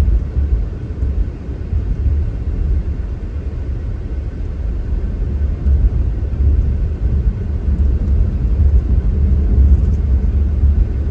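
Low, steady rumble of a car driving at road speed, heard inside the cabin: tyre, road and engine noise.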